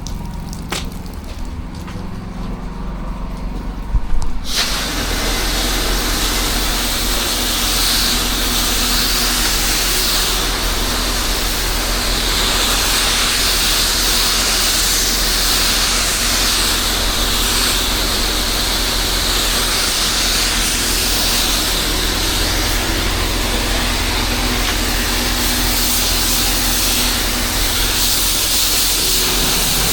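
A pressure washer's engine runs with a steady hum. About four seconds in, the spray wand opens and a loud, even hiss of the water jet starts and keeps going.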